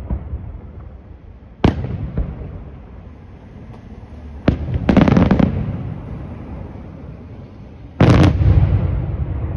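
Aerial firework shells bursting: three loud bangs a few seconds apart, each rumbling and echoing away. Just after the second comes a quick cluster of smaller bangs.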